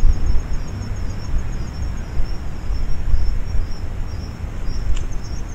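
An insect calling in high, rapid, regular pulses over a steady low rumble of wind on the microphone, with a single short click near the end.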